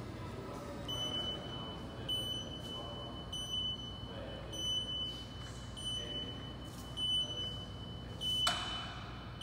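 Automated guided vehicle's (robotic pallet stacker's) warning buzzer sounding a steady high tone that pulses louder roughly once a second as the machine drives. A brief sharp noise near the end is the loudest moment.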